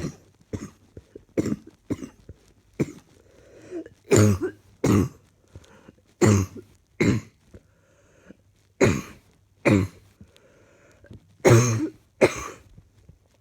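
A person coughing over and over: a few lighter, short coughs in the first three seconds, then louder coughs coming in pairs every two to three seconds.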